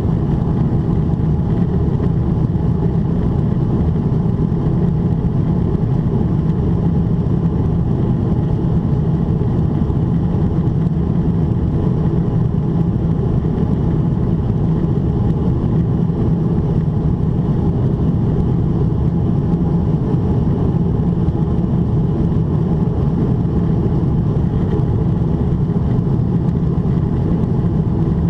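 Steady, unchanging low rumble inside the cabin of a Boeing 777-300ER climbing at altitude: the GE90-115B engines at climb power and the airflow over the fuselage, heard from a window seat.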